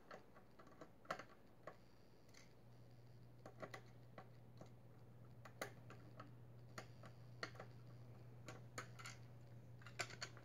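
Faint, scattered clicks of a screwdriver working a tight screw loose from a diecast car's plastic display base.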